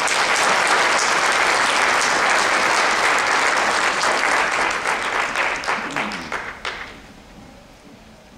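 Audience applauding, then dying away with a few last scattered claps about seven seconds in.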